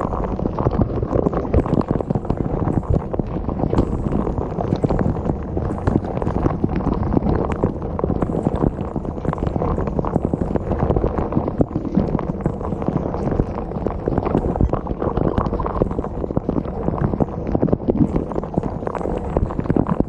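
Dishwasher in its wash cycle, heard from inside the tub: jets of water from the spray arms splashing over the dishes, rack and camera in a loud, steady rush with many small irregular knocks of water striking close by.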